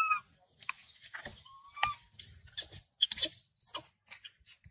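A young macaque giving a short, high, slightly bending coo about a second and a half in, with the tail of another call at the very start. It is followed by a run of quick scratchy clicks and rustles.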